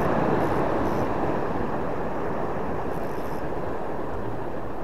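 Steady rushing noise of wind and sea surf on the microphone, with no distinct pitch or rhythm.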